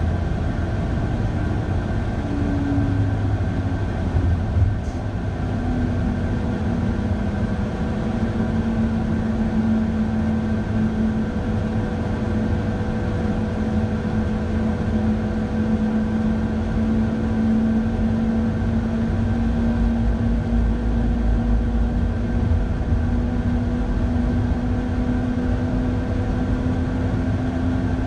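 Electric train running uphill on snow-covered track, heard from the driver's cab: a steady low rumble of wheels on rail under a steady motor hum that creeps slightly upward in pitch. A single brief click about five seconds in.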